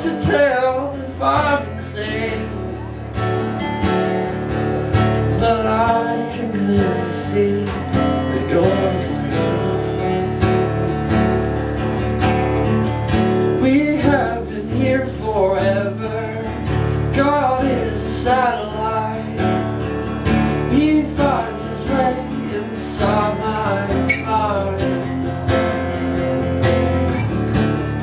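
Two acoustic guitars strummed and picked together in a song, with a man's voice singing phrases over them at several points.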